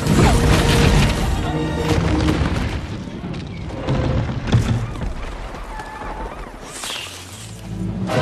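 Film score music over the heavy crash and low rumble of a giant ship's bow ploughing into a stone building, with water surging around it. A sharp thud stands out about four and a half seconds in.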